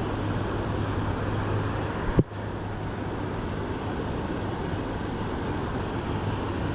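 Steady rushing outdoor background noise with a low hum underneath, broken once about two seconds in by a single sharp knock.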